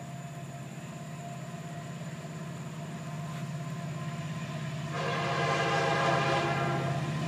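Approaching freight train's diesel locomotive rumbling and growing steadily louder, with its air horn sounding a long blast of several tones together from about five seconds in.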